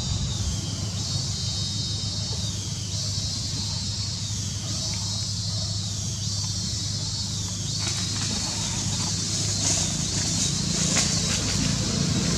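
Outdoor background: a steady low rumble like a running motor, with a high, pulsing hiss above it. From about eight seconds in, scattered clicks and crackles join it.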